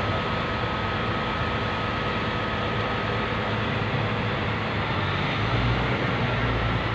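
Railway ballast tamping machine running steadily, a heavy engine hum with a thin steady whine over it.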